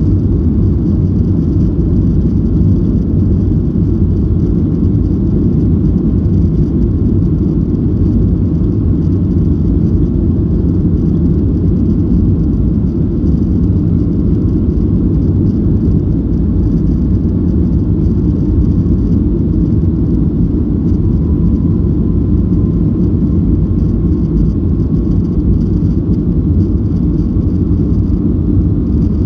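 Cabin noise inside a Boeing 737-800 taxiing: a steady low rumble from its CFM56 engines at low power and the wheels rolling, heard over the wing.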